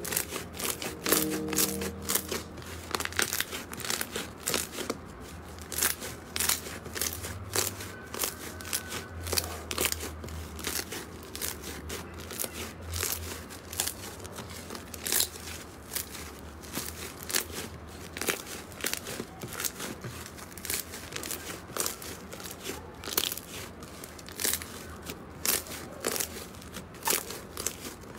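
Soft, fluffy slime being squeezed, pressed and stretched by hand, giving many small crackles and pops as air pockets in it burst, several a second and irregular.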